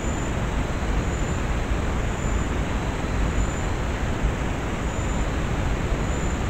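Night forest ambience picked up by a trail camera: a steady, fairly loud rumbling noise, heaviest in the low end, with a short high insect chirp repeating about once a second.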